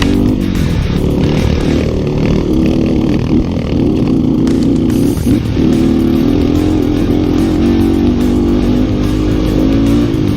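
Single-cylinder motorcycle engine of a Yamaha Vixion trail bike running under throttle, its pitch rising and falling with engine speed, an engine the rider says is down on power from a compression leak. Background music plays along with it.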